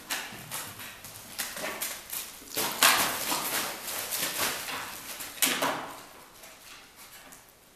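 Plastic sheeting and loose debris rustling and crinkling under a German shepherd's paws and nose as it searches through the litter. The rustling comes in bursts, loudest about three seconds in and again at about five and a half seconds, and dies down near the end.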